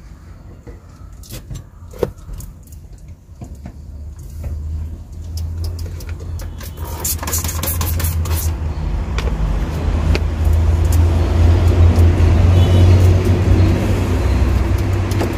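A truck's diesel engine running with a low steady hum that builds up from about five seconds in and grows louder, heard inside the cab. Scattered clicks and knocks in the first half, with a sharp knock about two seconds in.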